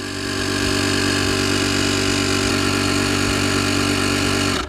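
Portable air compressor running steadily while inflating a pickup truck tire, with a dense, even motor hum. It cuts off suddenly near the end.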